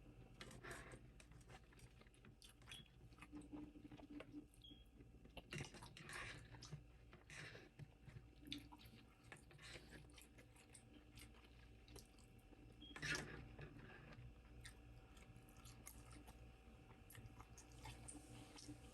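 Close-miked chewing of food: soft, wet mouth clicks and smacks, with louder clusters about six seconds in and again around thirteen seconds.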